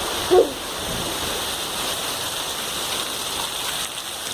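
Heavy rain pouring down with running water, a steady hiss. A short, loud pitched sound cuts through about a third of a second in.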